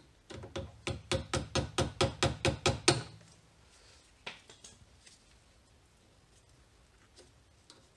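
A screwdriver working at the spring clip that holds the rubber brake hose to its bracket, knocking in a quick run of about a dozen strikes, some five a second and growing louder, for under three seconds. A few faint scattered clicks follow.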